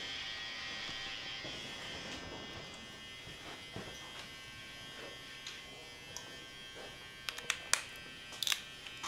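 Electric hair clipper running with a steady buzz while cutting a fade, with a few sharp clicks near the end.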